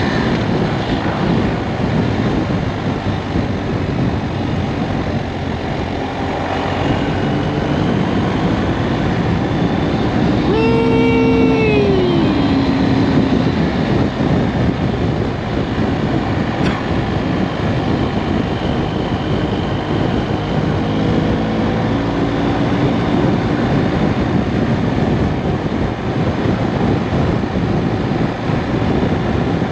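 Heavy wind noise rushing over a microphone tucked inside a motorcycle jacket while riding, with the BMW R1250RS's boxer-twin engine running underneath. About ten seconds in, a brief pitched sound slides down in pitch over a couple of seconds.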